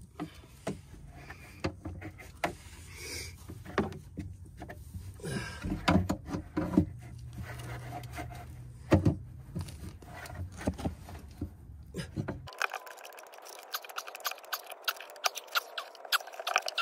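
Irregular clicks, knocks and scrapes of tools working plumbing fittings inside the base of a plastic automatic livestock waterer. A low steady hum underneath cuts off suddenly about three-quarters through, after which the clicks come quicker.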